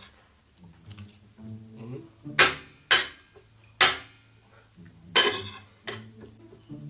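A spoon clinking and scraping against a plate of food, four sharp strokes in a few seconds.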